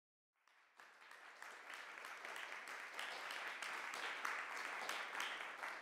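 Audience applauding, fading in from silence within the first second and holding steady as a dense patter of many claps.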